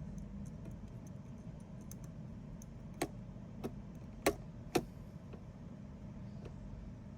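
Four sharp clicks or taps, a second or less apart, near the middle, over a steady low hum.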